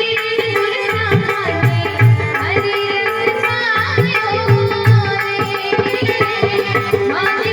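Live Hindi devotional bhajan music: tabla keeping a steady rhythm under held melodic tones and a winding melody line.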